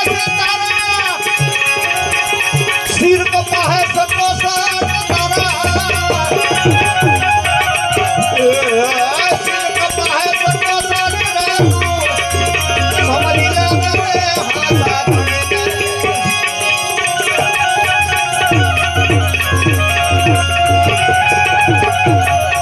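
Gujarati devotional bhajan music with tabla drumming under a melodic line that bends in pitch, played continuously without a break.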